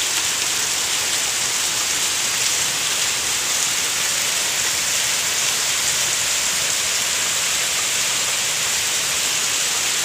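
Heavy rain pouring down steadily, an even hiss with no break.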